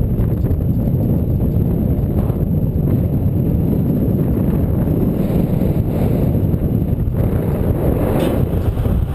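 Wind buffeting the microphone of a camera mounted on a moving bicycle: a steady, loud low rumble.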